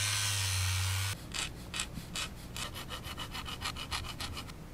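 A small hand-held rotary tool runs with a steady whine and hum, grinding a small plastic part, and stops about a second in. Then a needle file scrapes across the plastic part in quick short strokes, about five a second.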